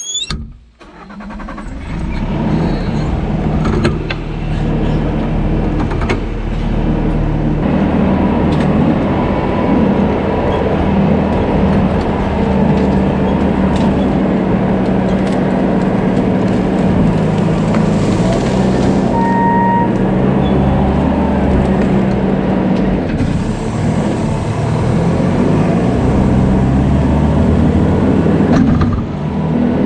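Bobcat T650 compact track loader's diesel engine running steadily under work. It swells up to full loudness about two seconds in.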